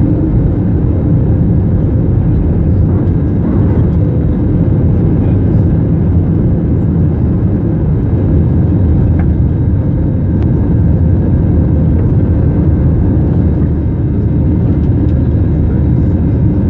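Jet engines of an Airbus A320-family airliner at takeoff thrust, heard from inside the cabin through liftoff and the initial climb: a loud, steady, deep rush of noise with a faint steady hum in it.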